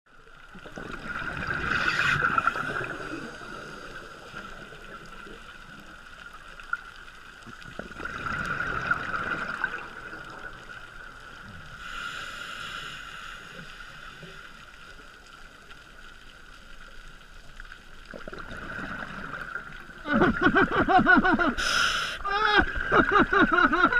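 Scuba diver breathing through a regulator, with a rush of exhaled bubbles every few seconds. About 20 seconds in, the diver breaks into repeated, uncontrollable laughter through the regulator, muffled and bubbling.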